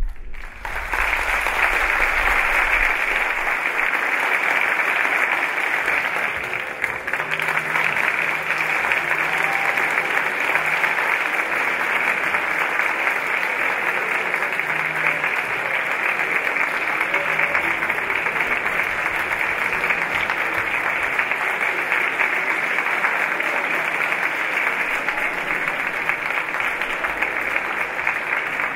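Large audience applauding, a dense steady clapping that swells in within the first second and holds.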